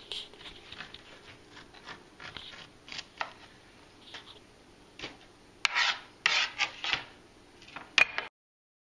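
Kernels being cut and scraped off an ear of corn on a plastic cutting board: a run of short rasping strokes, the loudest few in quick succession near the end, then a sharp click. The sound cuts off abruptly just before the end.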